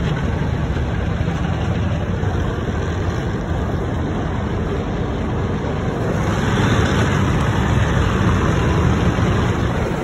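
Automatic car wash spraying water and scrubbing the car, heard from inside the closed cabin: a steady low rumble with a spray hiss that grows louder about six seconds in.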